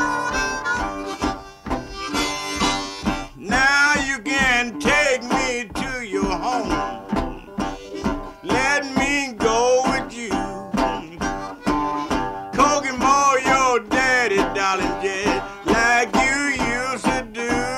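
Blues harmonica playing an instrumental break over a steady rhythmic guitar accompaniment: held chords at first, then from a few seconds in, bent notes with a wavering vibrato.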